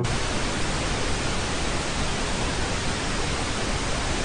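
TV static hiss, a steady even noise that starts with a short sharp click and cuts off abruptly near the end.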